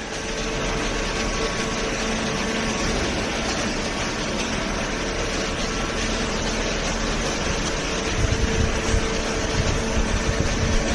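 Hydraulic cardboard baler's motor and pump running with a steady mechanical hum and whir, with some rougher, uneven low rumbling in the last few seconds.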